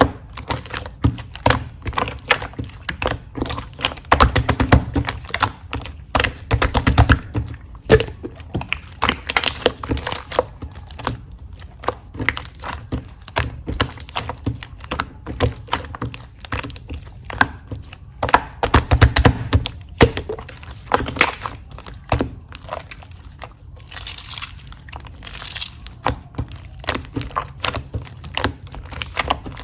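Slime being squished and pressed by hand, giving a dense, irregular run of clicks and pops.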